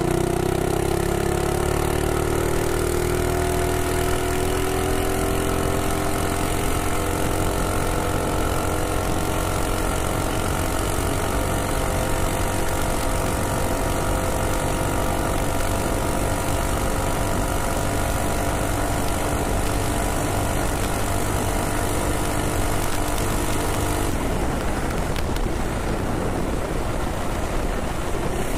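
Minibike's Ghost single-cylinder engine pulling hard under way, its pitch slowly rising as the bike gathers speed, with wind noise over it. About 24 seconds in the engine note drops away, leaving mostly wind, as the bike slows.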